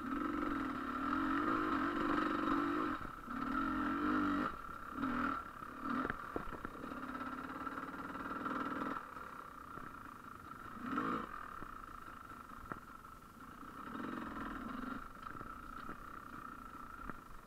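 GasGas EC300 two-stroke enduro motorcycle engine being ridden on a trail, revving in repeated bursts of throttle and dropping back between them, with a steady high whine underneath.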